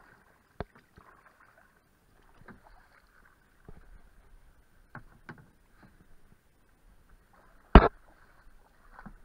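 Paddling a plastic canoe: scattered paddle strokes and light knocks of the paddle on the hull, with one much louder sharp knock a little before the end.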